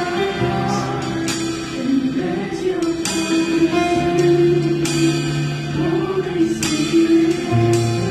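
Live worship band playing, with the drum kit's cymbals crashing every second or two over sustained bass notes.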